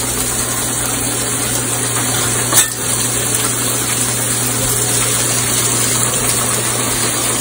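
Potatoes boiling hard in a stainless steel stockpot, water bubbling and churning steadily, with a single sharp knock about two and a half seconds in and a steady low hum underneath.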